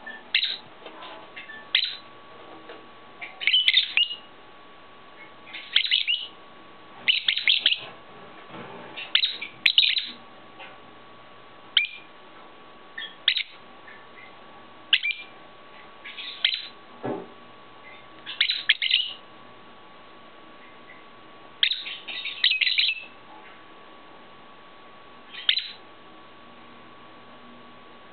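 Pet lovebirds giving sharp, high chirps, singly and in short clusters every second or two, over a faint steady tone.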